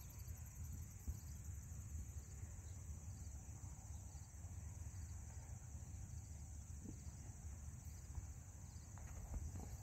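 Faint, steady chorus of field crickets and other insects chirring in the grass, a fine even pulsing high in pitch, over a low rumble.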